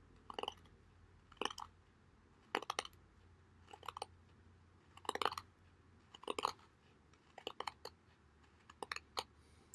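Stainless blade of a Victorinox Hunter Pro Alox lockback folding knife whittling a piece of wood: about eight short crackling shaving strokes, roughly one a second.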